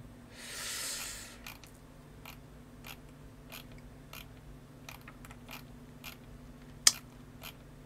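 Computer mouse scroll wheel clicking in an irregular run of faint ticks, with one sharper, louder click near the end. A short soft hiss comes near the start.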